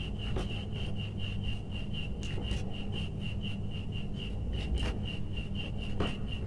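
Combination pliers twisting copper wire ends together, giving faint scraping and a few small clicks. Behind it runs a steady high-pitched chirp pulsing about four or five times a second, with a low hum.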